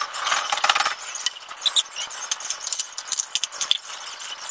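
Wooden spatula and hands working pizza dough in a non-stick wok: irregular scraping and clicking against the pan.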